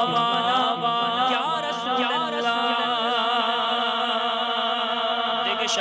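A man singing a naat into a microphone, drawing out one long melismatic vocal line whose pitch wavers and turns, without a break for breath.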